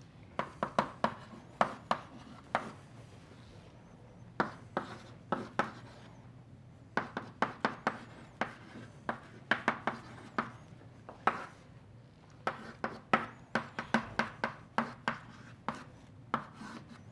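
Chalk writing on a blackboard: quick runs of sharp taps and clicks as symbols are written, with short pauses between runs.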